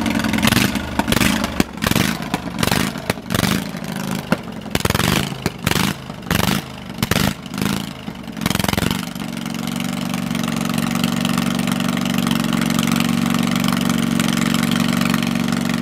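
A 22.5 hp Kohler Command V-twin with no exhaust fitted, running very loud in a garden tractor. For about the first nine seconds it comes in choppy, uneven bursts several times a second, then it settles into a steady, even run.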